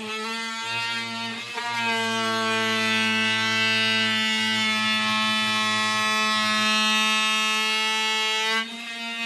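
DeWalt oscillating multi-tool with its blade cutting into cupboard woodwork, a loud, steady, high buzz. It dips briefly near the end, then carries on cutting.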